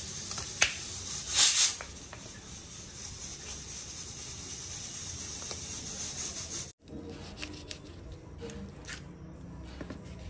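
Knife cutting onion on a wooden chopping board: a few sharp cuts, the loudest about a second and a half in, over a steady hiss. After a brief dropout, light clicks and rubbing as drumstick pods are handled on the board.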